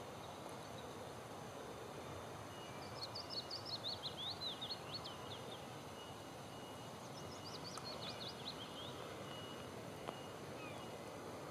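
A songbird sings two short phrases, each a quick series of falling high notes, over a steady background hiss. There is a single brief click near the end.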